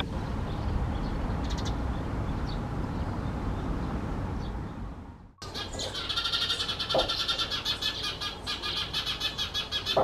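Eurasian tree sparrow: a couple of faint short chirps over steady low background noise, then a rapid, continuous, buzzy 'jujuju' call from a sparrow at its nest box, taking up the second half. This quick run of notes is the tree sparrow's alarm call.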